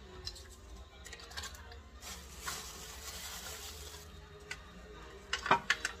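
Handling noise on a counter: a plastic wrapper crinkles for about two seconds, then small items clatter in a quick run of sharp clicks near the end.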